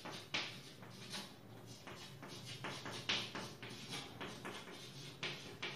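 Chalk writing on a blackboard: an irregular run of light taps and short scratchy strokes as a stick of chalk forms letters and symbols.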